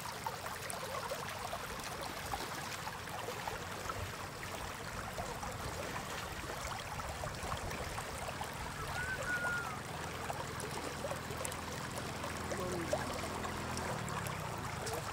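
Shallow floodwater trickling and lapping over stones, with light splashing from feet wading through it. A faint low hum comes in during the second half.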